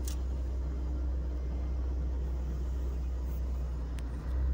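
Steady low rumble of a car heard from inside its cabin, with a brief click at the start and a faint one about four seconds in.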